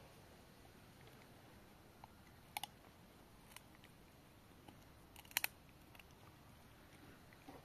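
Maremma sheepdog puppy gnawing a wooden stick: a few sharp cracks and crunches of the wood between its teeth, the loudest a quick double crack about five seconds in, with near quiet in between.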